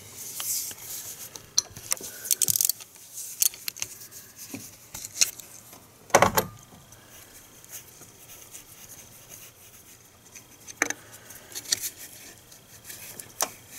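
3/8-inch drive ratchet on an extension loosening a 10 mm solenoid hold-down bolt: scattered ratchet clicks and metal taps, with a quick run of clicks about two seconds in and one louder knock about six seconds in.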